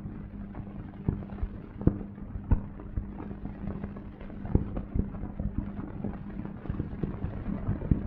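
Crackle and a steady low hum from an old film soundtrack: irregular clicks and pops scattered over a constant drone, with no speech or music.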